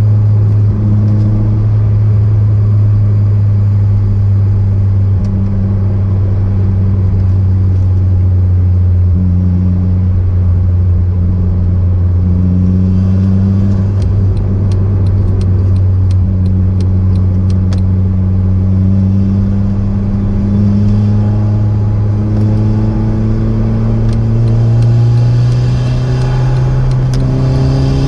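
Car engine running steadily under way, its note rising slightly near the end. A run of light clicks sounds about halfway through.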